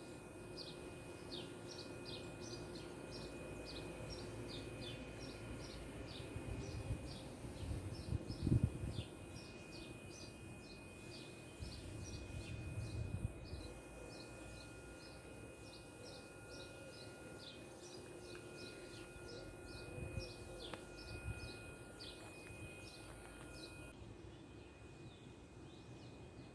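Small birds chirping continuously: a rapid string of short, high, falling chirps over a steady outdoor background, thinning out near the end. A few low rumbles stand out about eight and thirteen seconds in.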